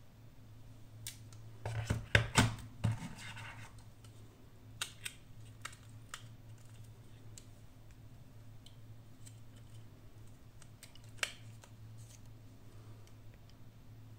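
Handling noises from unboxing a smartphone: a quick run of scraping and clicking, loudest about two seconds in, then a few scattered light clicks, over a steady low hum.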